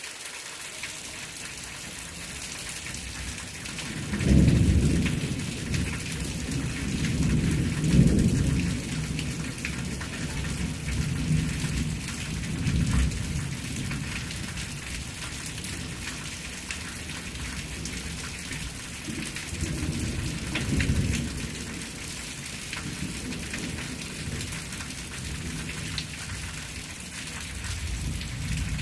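Steady rain with several low rolls of thunder, the loudest about four and eight seconds in.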